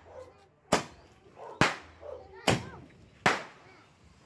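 Consumer fireworks firing in quick succession: four sharp bangs at a steady pace, a little under a second apart, each with a short fading echo.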